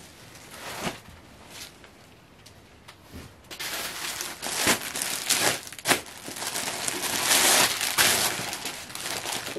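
Clear plastic packaging bag crinkling and crackling as it is handled and pulled off a folded suit. It starts about three and a half seconds in and is loudest a second or two before the end.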